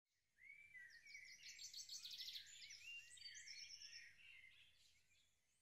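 Faint birdsong: several birds chirping, trilling and whistling, fading away over the last second or two.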